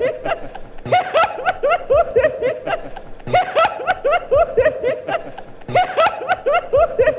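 A woman's high-pitched laugh: quick runs of short 'ha-ha-ha' syllables, each dipping in pitch. It is a sound-effect clip looped so the same laugh bout repeats about every two and a half seconds.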